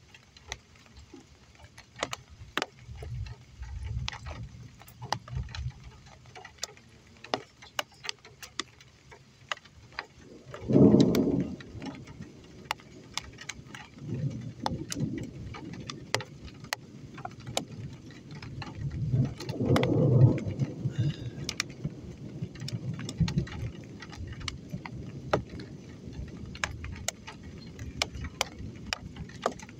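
Raindrops ticking irregularly on a nearby surface, with low rumbles of distant thunder rolling in several times, loudest about a third and two-thirds of the way through.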